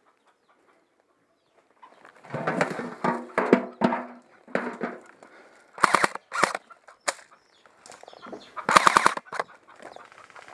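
Airsoft guns firing short rapid bursts, one at about six seconds in and another near the end, mixed with chickens clucking.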